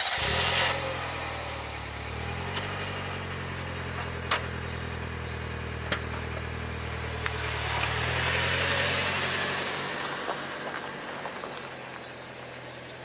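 Mitsubishi Pajero Mini's small four-cylinder engine idling steadily just after starting, a low even hum with a few light clicks. The engine note fades in the last few seconds.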